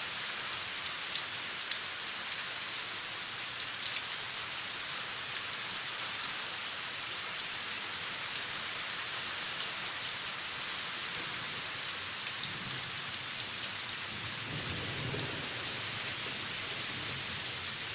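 Hard rain falling steadily, with many sharp drop ticks. A soft low rumble of distant thunder rises and fades about two-thirds of the way through.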